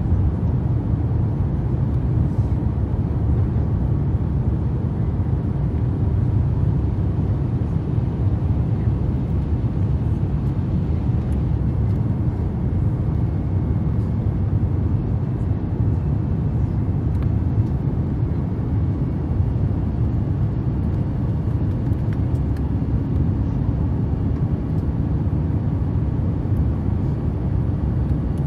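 Steady low rumble of cabin noise inside an Airbus A350 airliner, from its engines and the air around the fuselage.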